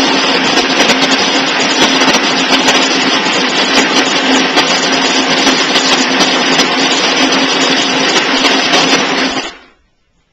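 Electric shaved ice machine running, its motor humming steadily under a dense scraping, grinding noise as the blade shaves ice. It cuts off abruptly near the end.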